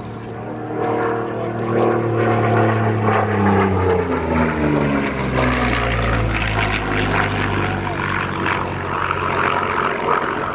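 Propeller-driven aerobatic plane's engine passing fast, its pitch sliding steadily down as it goes by.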